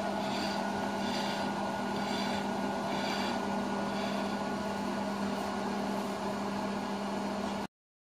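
A steady low hum from a small motor or appliance running, with a faint hiss that swells softly about once a second; the sound cuts out completely for a moment near the end.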